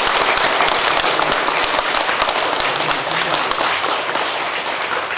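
Audience applauding: many people clapping in a dense patter that thins slightly toward the end.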